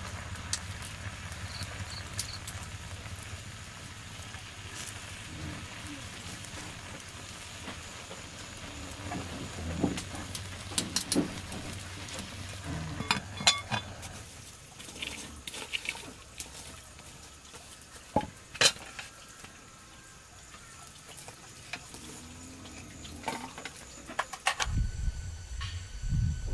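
Cooking sounds: food sizzling in a pan, with scattered clinks and scrapes of utensils. A low steady hum runs under the first half.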